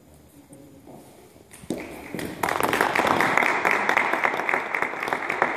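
Congregation applauding: scattered claps start about a second and a half in and swell into full, steady applause.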